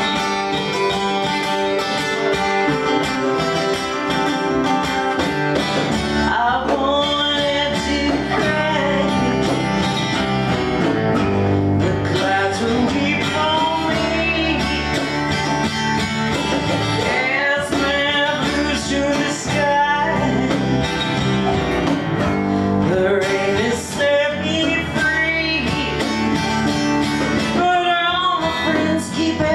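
Live acoustic country band playing a song: strummed and picked acoustic and resonator guitars over a bass guitar, with a woman singing lead from about six seconds in.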